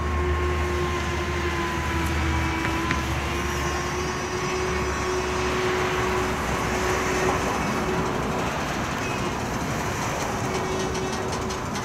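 Distant steam locomotive working hard: ex-Chesapeake & Ohio 1309, a 2-6-6-2 articulated Mallet. A steady, continuous rumble of exhaust with a faint held tone.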